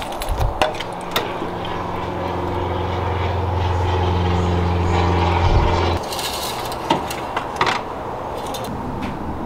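A steady low mechanical hum runs for about five seconds, growing slightly louder partway through, then cuts off suddenly. A few sharp clicks sound around it.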